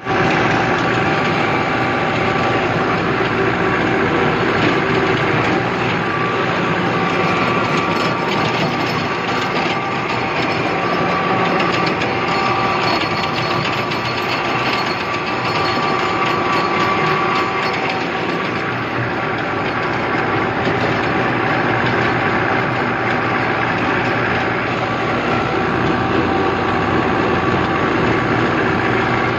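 Tractor diesel engine running steadily under load, heard up close from the driver's seat, driving a rear-mounted rotavator whose blades churn through the grass with a continuous clatter.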